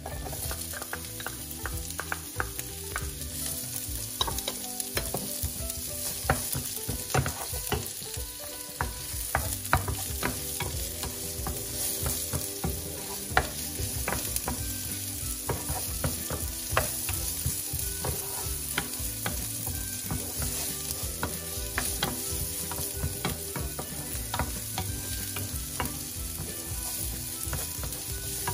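Diced onion and garlic sizzling in hot oil in a nonstick frying pan, stirred with a wooden spoon that taps and scrapes against the pan again and again.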